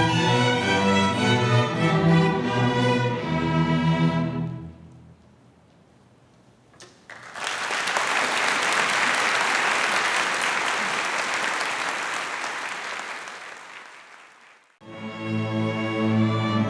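String orchestra music fades out about four seconds in. After a short lull, a crowd applauds for several seconds and the applause fades away. A new string orchestra piece starts near the end.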